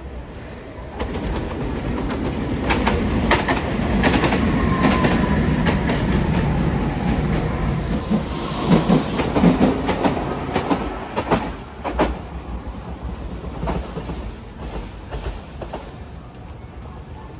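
Hiroshima Electric Railway streetcar passing close by on ballasted track. Its wheels clack over rail joints with a rumble and a faint falling whine, building about a second in and fading over the last few seconds.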